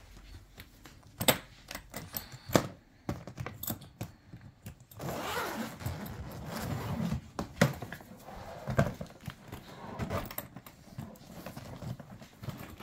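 Metal zipper pulls clicking and jangling as they are freed from the Heys Tekno carry-on suitcase's combination lock. About five seconds in, the suitcase zipper is run open with a rough rasping sound lasting a few seconds, followed by knocks as the hard shell is handled open.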